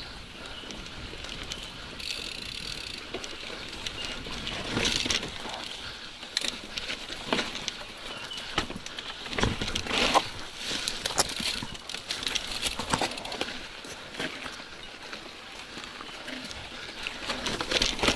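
Mountain bike riding fast down a rough, rocky dirt singletrack: tyres crunching over dirt and stones, with the bike clattering and knocking over bumps throughout.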